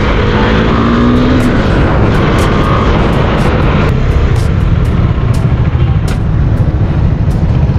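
Husqvarna Svartpilen 401's single-cylinder engine running as the motorcycle rides through traffic, heard through heavy wind rumble on the camera microphone. The engine pitch rises briefly during the first second or two as it accelerates.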